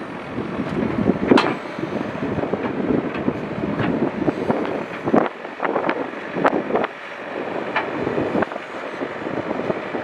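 ACE backhoe loader's diesel engine running under load as the backhoe arm lifts and curls its bucket, with scattered knocks and clanks.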